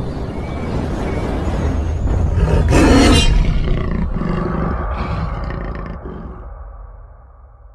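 A loud outro sound effect that starts suddenly, swells to its loudest about three seconds in, then fades away over the last few seconds.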